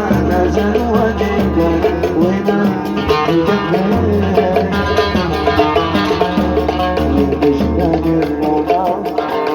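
Instrumental Arabic song introduction: a plucked-string melody over a steady low bass, with no singing.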